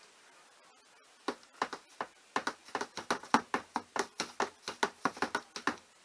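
A quick, irregular run of light clicks or ticks, roughly five a second, starting about a second in.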